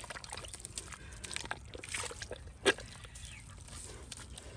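Hands working in wet mud: squelching and sloshing, with scattered small clicks and one sharp slap about two and a half seconds in.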